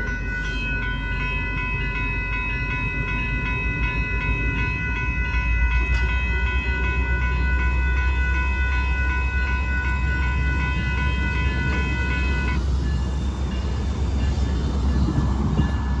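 Railroad crossing bell ringing with a steady, even pulse, which stops about twelve seconds in. A low train rumble runs underneath and grows louder about five seconds in.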